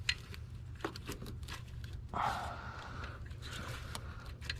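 Small clicks and knocks of hands handling engine-bay parts and tools, with a brief scraping rasp about two seconds in, over a steady low hum.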